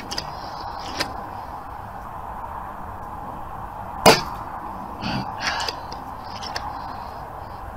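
Air rifle firing a pellet: one sharp shot about four seconds in, the loudest sound, with a few lighter clicks and knocks before and after it.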